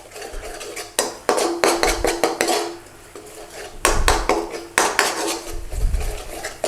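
A metal utensil stirring, scraping and knocking against a curry pan while thick tomato puree and spices cook out over a raised flame, as repeated clinks and scrapes.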